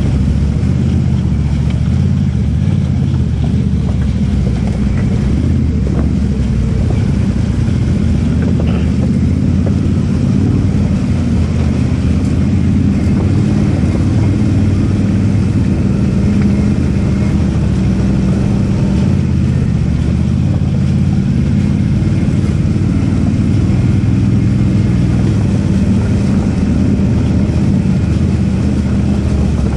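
ATV engine running steadily under power, with its low drone shifting a little in pitch as the throttle changes.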